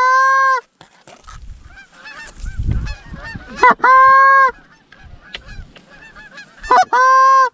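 Canada geese honking: three loud, drawn-out honks about three seconds apart, each rising quickly then held on one note, with fainter honks and cackles from the incoming flock between them.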